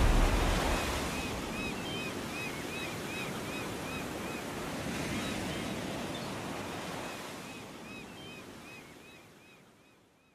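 Ocean surf washing, with a bird giving short, rapidly repeated calls over it. The whole ambience fades out to silence over about nine seconds.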